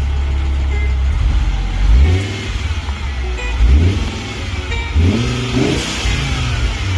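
Car engine running with a steady low note, revved up and let fall back several times: about two seconds in, about four seconds in, and again around five to six seconds in.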